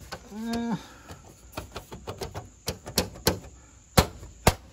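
Plastic aftermarket lower grille on a Ford F-150 clicking and knocking as it is pushed and tapped by hand: a string of sharp clicks, then two loud knocks near the end. The grille sits loosely in the middle, where it has no clips.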